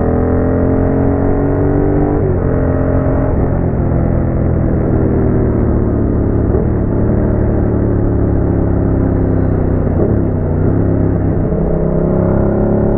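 Yamaha MT-07 parallel-twin engine running through a Roadsitalia aftermarket exhaust. The pitch climbs for the first two seconds, drops sharply about two seconds in, dips briefly twice more around six and a half and ten seconds, then climbs again near the end.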